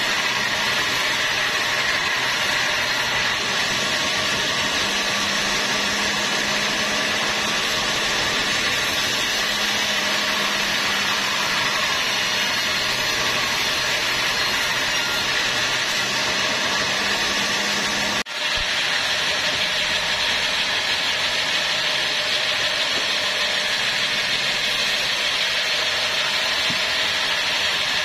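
An engine-driven band sawmill running steadily as its blade cuts along a squared teak beam. The sound breaks off for an instant about two-thirds of the way through, then carries on with less low hum.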